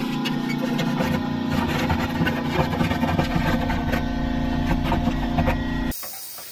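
Pneumatic air hammer chattering steadily at a fast rate as it works on a rusted exhaust pipe and muffler, with metallic knocks over the buzz. It cuts off abruptly near the end.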